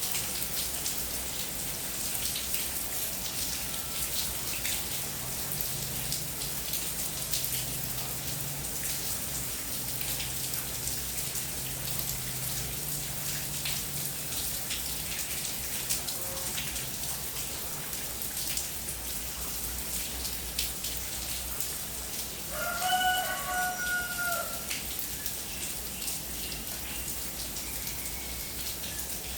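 Steady rain falling, a constant hiss with the patter of many individual drops. A rooster crows once about three-quarters of the way through.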